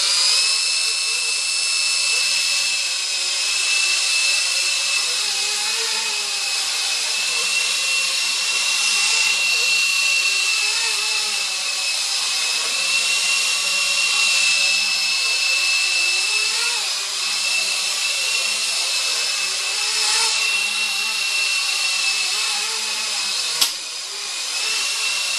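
Blade 120 SR micro RC helicopter's electric motor and rotor whining steadily in flight, the pitch wavering a little with throttle. Near the end comes a sharp knock as it strikes a wall, and the whine dips briefly before picking back up.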